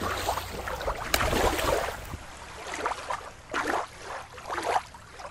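Shallow water splashing and lapping as a toy fish is moved through it at the water's edge. About two seconds in, the sound changes to quieter, uneven water sounds with occasional swells.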